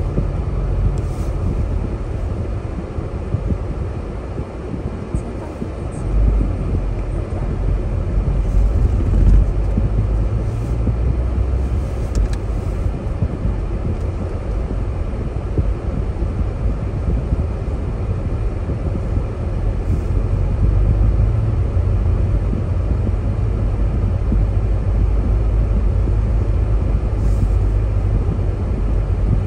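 Car driving steadily along a road, a constant deep rumble of engine and tyre noise heard from inside the cabin.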